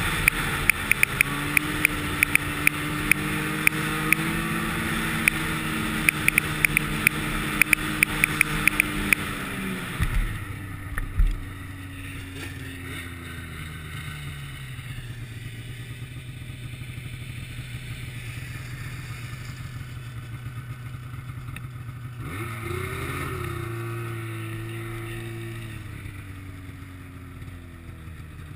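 Snowmobile engine running at speed with a rapid rattle of sharp ticks over it, then throttling off a third of the way through with a couple of thumps. It idles low for a while, revs up again about two-thirds of the way in, then eases off.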